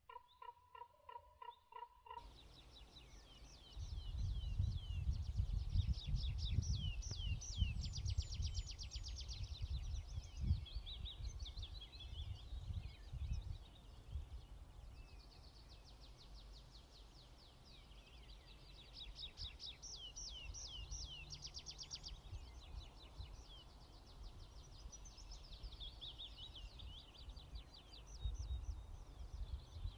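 Small birds twittering in rapid, repeated high trills, in two long spells, with gusts of wind rumbling on the microphone underneath.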